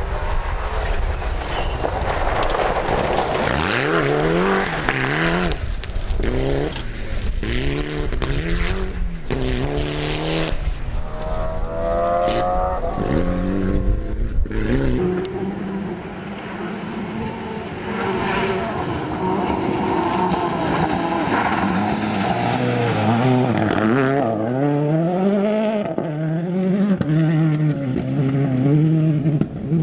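Rally cars flat out on a gravel stage, engines repeatedly revving up and dropping back with each gear change. In the first part the car is a Mitsubishi Lancer Evolution with its turbocharged four-cylinder.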